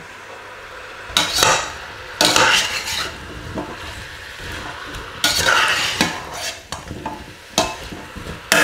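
Metal slotted spatula stirring and scraping diced zucchini in a stainless steel pot, several separate stirring strokes, with a sharp clink against the pot near the end. A faint sizzle of the zucchini cooking in oil runs underneath.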